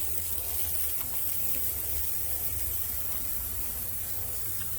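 Water spraying from a hose onto a freshly sawn oak slab: a steady hiss over a steady low rumble.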